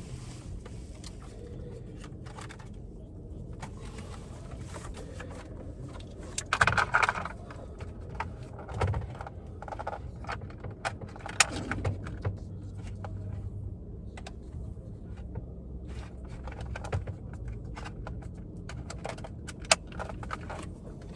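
Handling and plugging in plastic wiring-harness connectors: scattered clicks, small rattles and rustling of the loom, with a few louder clatters, over a low steady hum.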